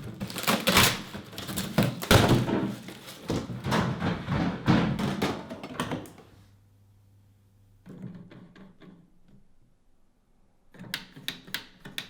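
A dense run of knocks and thumps for about six seconds, then a few quieter clicks, and a short cluster of sharper clicks near the end.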